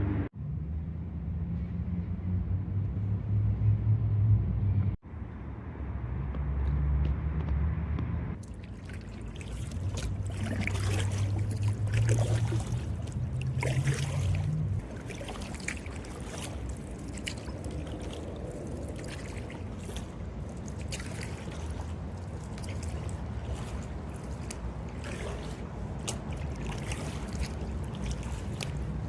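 Water trickling, dripping and splashing around a kayak as the paddle dips and lifts. A low rumble runs under the first half and fades out partway through.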